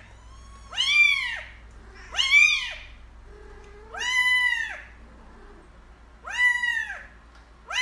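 A kitten meowing again and again: high meows, each rising then falling in pitch, one every one and a half to two seconds.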